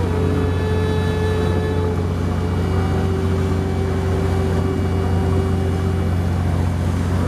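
Sightseeing boat's engine running steadily: a constant low drone with several steady higher tones riding over it.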